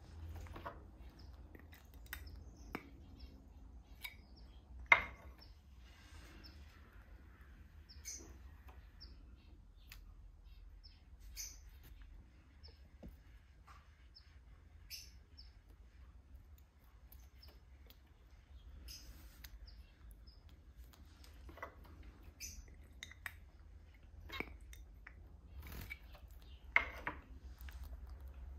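Young zebra finch chick giving short, faint chirps scattered through, with light taps and clicks; the sharpest click comes about five seconds in.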